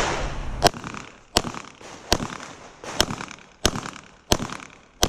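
Pistol shots fired at a steady, unhurried pace, about one every three-quarters of a second, seven in all.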